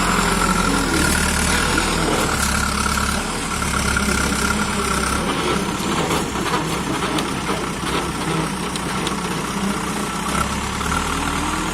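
Diesel engine of a JCB 3DX backhoe loader running steadily while it works, with a steady high whine over the engine and a few light knocks.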